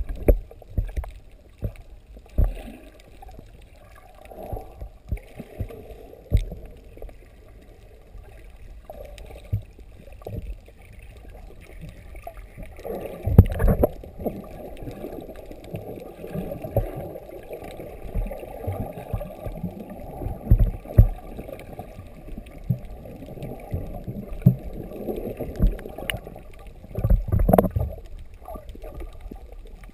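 Muffled underwater sound of water moving and bubbling, with irregular low thumps from the snorkeler's swimming. It is louder and busier about 13 seconds in and again near the end, as the swimmer's body and bubbles churn close by.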